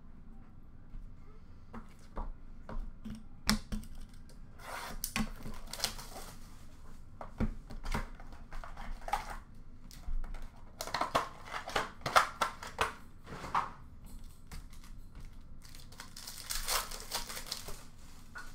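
Trading-card pack wrappers and packaging crinkling and tearing as hands rummage through them, with light clicks of cards being handled. There are three longer bouts of rustling, about 4.5, 11 and 16.5 seconds in.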